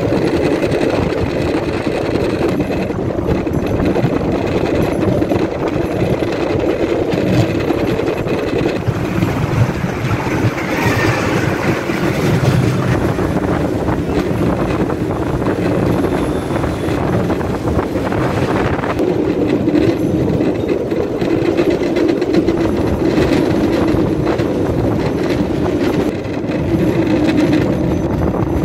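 Bamboo train (norry) running along a narrow-gauge track: a steady mix of its small engine and its wheels running on the rails.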